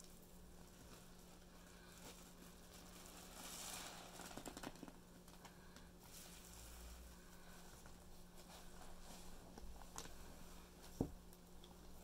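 Faint wet squishing and crackling of foam sponges full of Pinalen-and-Comet suds, squeezed and pressed by hand in a tub of foamy water. A fuller burst of fizzy crackle comes about four seconds in, and a single sharp knock near the end.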